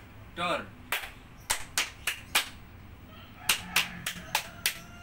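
Hand claps and finger snaps played as a scout clap pattern: about ten sharp strikes in an uneven rhythm, in two quick groups, with a short vocal call about half a second in.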